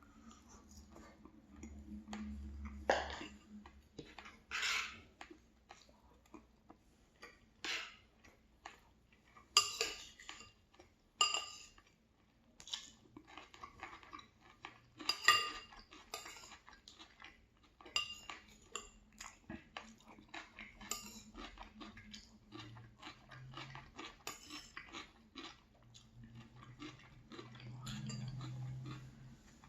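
Metal cutlery clinking and scraping on a plate while eating, a long irregular run of clicks and taps, some ringing sharply.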